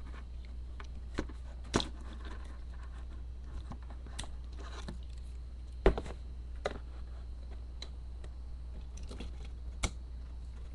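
Plastic clicks and small knocks from a Blitzwing action figure being handled as its foot and heel parts are flipped out and it is stood on a tabletop, about six scattered clicks with the sharpest about six seconds in. A steady low hum runs underneath.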